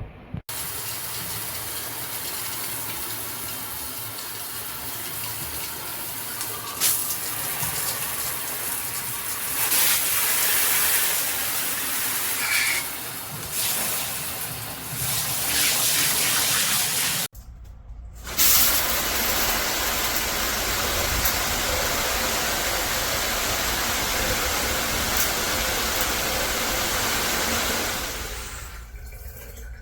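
Water spraying steadily from a shower head, a continuous hissing rush. It cuts out briefly about seventeen seconds in, then resumes with a deeper rush and fades near the end.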